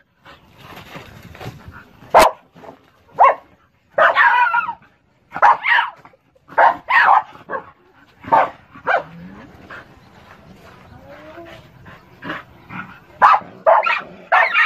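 Dogs barking and yipping in short, irregular bursts at an animal caught in a wire-mesh cage trap.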